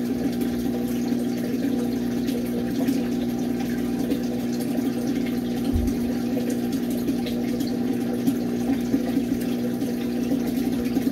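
Steady mechanical hum of a small motor running, even in pitch and level, with a faint hiss above it. A brief low thump about six seconds in.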